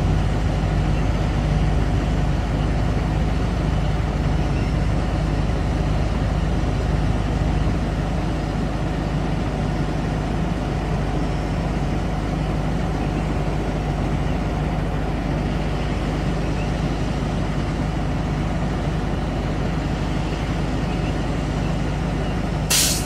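A vehicle engine idling steadily, an even low hum that does not change. A short, sharp noise cuts in once near the end.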